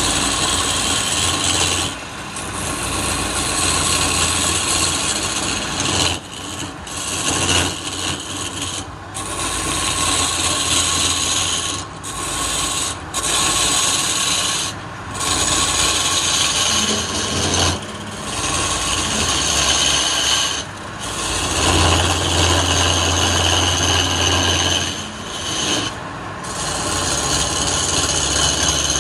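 Hand turning tool cutting into a spinning wooden blank on a lathe, peeling off shavings: a continuous rough scraping, broken every few seconds by brief gaps where the tool lifts off the wood.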